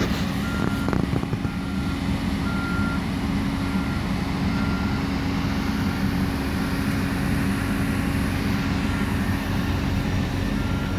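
Heavy construction machinery running with a steady diesel drone, while a backup alarm beeps about once a second. The beeps fade in the middle and come back near the end.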